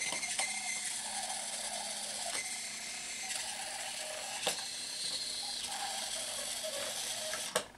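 Boe-Bot robot's servo motors whirring steadily with a gear buzz as it drives along the track, with a few sharp clicks; after a last click near the end the whir stops abruptly.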